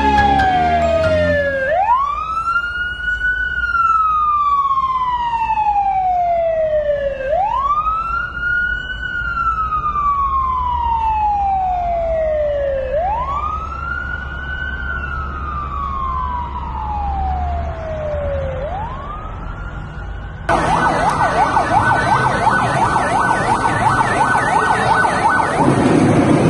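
Fire truck siren wailing in slow cycles, each a quick rise and then a long, slow fall, four times over. About twenty seconds in it cuts off abruptly and a louder, dense noise with a steady high tone takes over.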